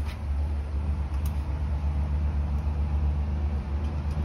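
A steady low rumble, with a faint click about a second in.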